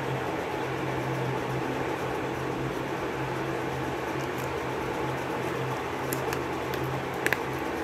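Steady whirring hum of a room fan, with a few short crackles and clicks near the end as packing tape on a cardboard box is cut and pulled.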